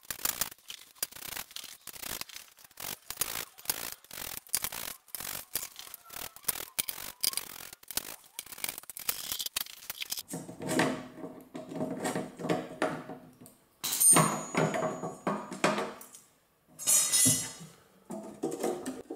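Oil pan being taken off a small-block Chevy engine: a long run of quick sharp clicks as the pan bolts are worked loose, then a screwdriver prying and scraping the steel pan free along the block's seam, with ringing metal, knocks and a short scrape near the end.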